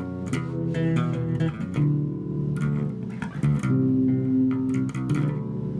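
Electric bass guitar played in quick runs of plucked notes, with held keyboard chords sounding underneath.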